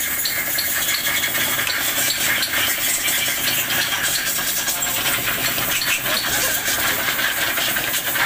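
An engine running steadily, with a fast, even ticking.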